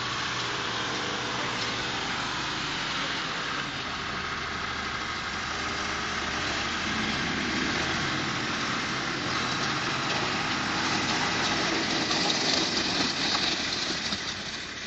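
A vehicle engine running steadily, growing louder near the end.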